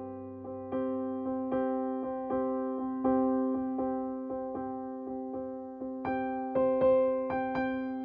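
Background music: a soft piano-like keyboard piece of evenly repeated notes, about two or three a second, starting at the beginning and fuller with higher notes from about six seconds in.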